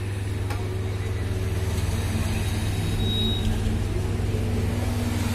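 A steady low machine hum, with two last clicks of the motorcycle's indicator flasher ticking at the start.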